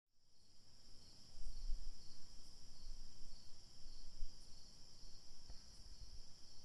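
A steady, high-pitched chorus of insects trilling outdoors, with a low, uneven rumble underneath.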